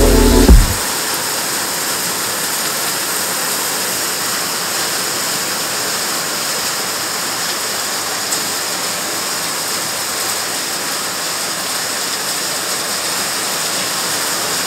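Heavy rain mixed with small hail pouring down steadily onto a lawn and concrete patio, a continuous hiss. Background music cuts off within the first second.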